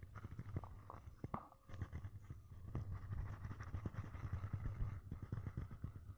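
A man's long, low, rough burp after chugging Coca-Cola, with a brief break about a second and a half in, then rumbling on for several seconds.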